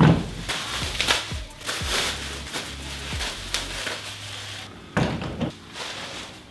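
Chicken plucker parts being unpacked by hand: plastic wrapping rustling and parts knocking onto a folding table, with a sharp knock at the start and another about five seconds in, over background music.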